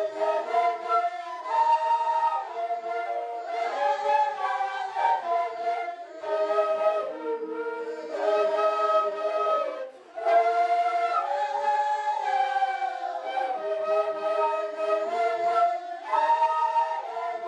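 An ensemble of quena flutes playing a quena-quena dance melody together, in phrases with a short pause about ten seconds in.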